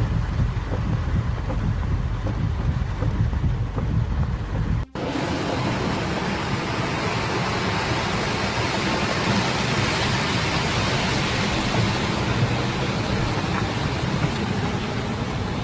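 Hurricane-force wind buffeting the microphone with a low rumble. About five seconds in it cuts to a steady, even hiss of driving rain and wind.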